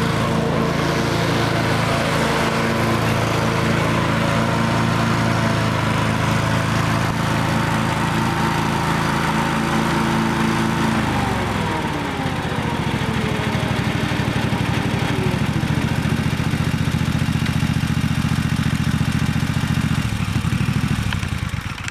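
Scag 52 Advantage zero-turn mower's 17 hp Kawasaki FH500V V-twin engine running at speed. About halfway through, the engine note falls and settles into a lower, steady run.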